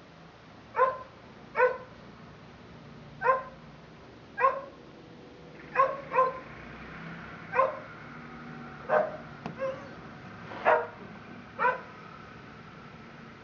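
A dog barking in single short, sharp barks, about eleven of them at uneven intervals of roughly a second, two of them coming close together.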